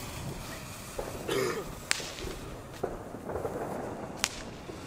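A lit firework fuse sputtering with a short hiss about a second in, and sharp firecracker cracks, the two loudest about two and a half seconds apart.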